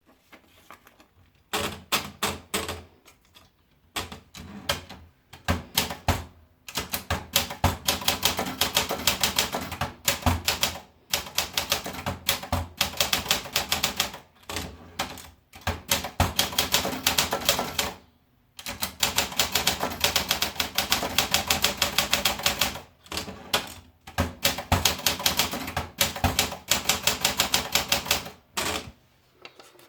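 Olympia Traveller portable manual typewriter being typed on: rapid key strikes in runs of several seconds, broken by short pauses.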